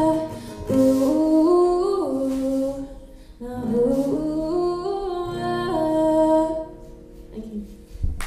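A woman singing long, held notes over a strummed acoustic guitar, the closing phrases of a song; the music dies away near the end.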